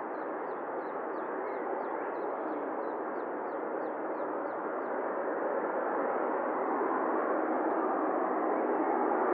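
Jet engines of a Boeing 777-300ER, GE90s, running on the ground: a steady rushing hum that grows slowly louder toward the end. Faint short chirps repeat about three times a second during the first few seconds.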